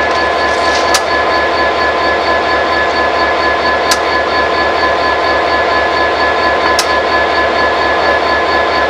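EMD SD40-2 diesel locomotive's V16 engine running steadily while the locomotive stands still, a constant roar with a steady high whine running through it. Three short sharp clicks, about three seconds apart, stand out over it.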